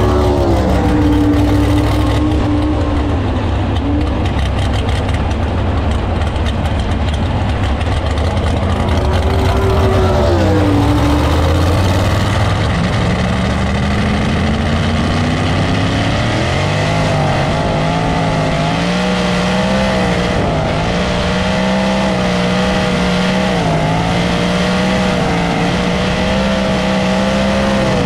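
USAC Silver Crown race car's V8 engine heard from on board under hard acceleration: the pitch dips early, climbs steadily through the revs about halfway in, then holds high with small rises and falls as the car runs flat out on the straight.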